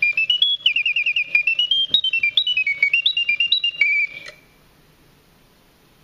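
Antique French Bontems singing-bird automaton singing through its bellows-blown whistle: a quick run of whistled chirps and trills, with short notes stepping and sliding in pitch. It stops abruptly about four seconds in.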